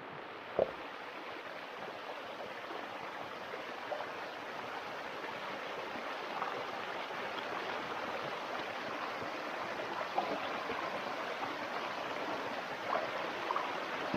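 Shallow stream water rushing steadily over rocks and through a narrow gap between stones. There is one sharp knock about half a second in and a few faint splashes later on.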